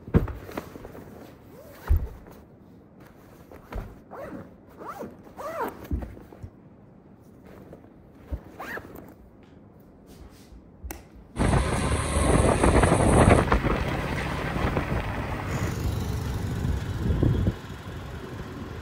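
A backpack lands on a bed with a thump, followed by scraping, rustling and zipper-like handling sounds. About eleven seconds in, a loud steady din of road traffic starts abruptly: motor scooters, cars and electric rickshaws passing.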